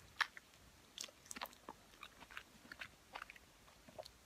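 Biting into a sauce-coated chicken hot wing, then chewing: a string of short, irregular mouth clicks and smacks, the first bite the loudest.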